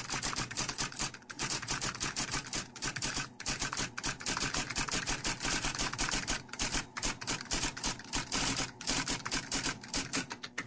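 Typewriter keystroke sound effect: a rapid, continuous run of key clacks that cuts off suddenly at the end, synced to a question being typed out on screen.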